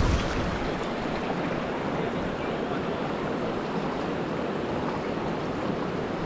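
Clear, shallow river flowing over rocks and stones: a steady, even sound of running water.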